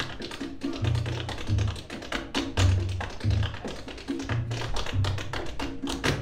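Tap shoes striking a wooden tap board in a quick run of steps. Plucked upright bass notes and drums play underneath.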